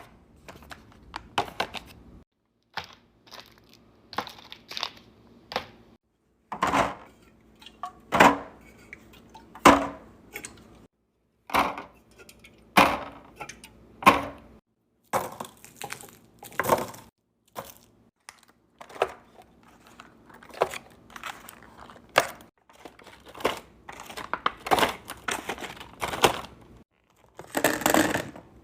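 Groceries being restocked into a fridge: irregular knocks and clatters of containers and bottles set down, with crinkling and tearing of plastic packaging. The sound breaks off abruptly several times, in hard cuts between short clips.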